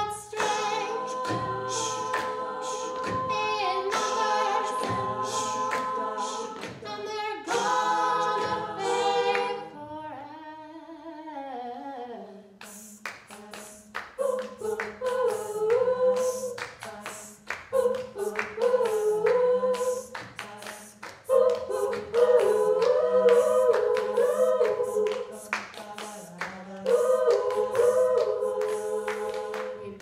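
All-female a cappella group singing: a lead melody over sustained backing chords, with sharp percussive beats throughout. About ten seconds in the texture thins briefly, then a low sung bass line and fuller chords come in.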